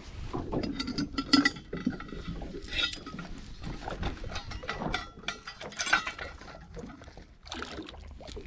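Boat anchor being lowered by hand over the bow: the anchor chain clinks and rattles as it is paid out, with scattered knocks.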